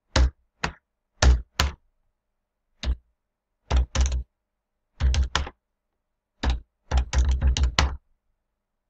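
Computer keyboard keys struck hard, each stroke a sharp click with a dull thud, in short irregular groups as numbers are typed in, ending in a quicker run of keystrokes about seven seconds in.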